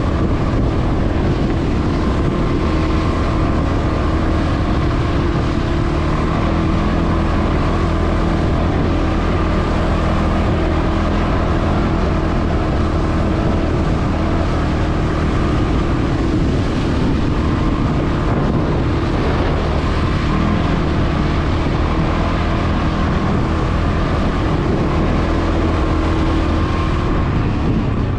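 CFmoto CForce 520 ATV's single-cylinder engine running steadily at an even pitch, with a constant hiss over it.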